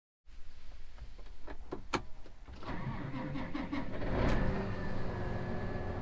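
A few clicks and knocks from the cab controls, then about two and a half seconds in the John Deere tractor's diesel engine starts and settles into a steady idle, heard from inside the cab.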